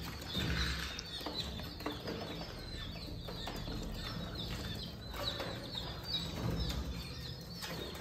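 Caged pigeons and chicks: a steady run of short, high chirps that fall in pitch.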